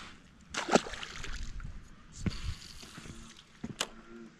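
A splash in the water about half a second in, with water sloshing for about a second after it, then a few light clicks near the end as the fishing rod's reel is handled.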